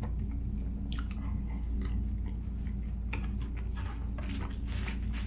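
Close-miked chewing of a breaded, deep-fried chicken tender, mouth closed, with soft crackles of the breading, strongest about four seconds in, over a steady low hum.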